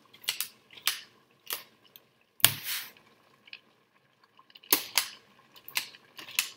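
A compact Joseph Joseph can opener being fitted onto a tin can and twisted. It gives a series of sharp clicks and snaps at irregular intervals, the loudest a single knock about two and a half seconds in.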